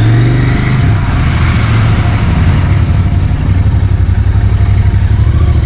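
Royal Enfield Continental GT 650's parallel-twin engine running as the bike is ridden at low speed, heard from the rider's seat. The revs rise briefly at the start, then the engine settles into an even low beat.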